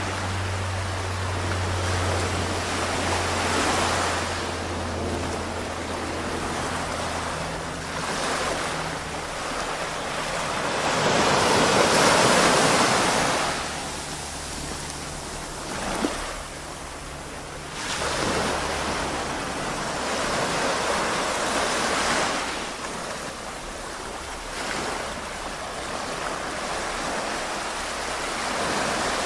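Waves washing onto a beach, swelling and fading every few seconds, loudest about twelve seconds in.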